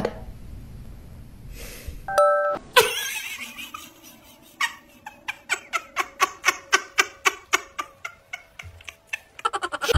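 A short doorbell-like chime about two seconds in. Then rhythmic splashing as a dog paddles its legs in a tub of water, about two to three splashes a second, quickening near the end.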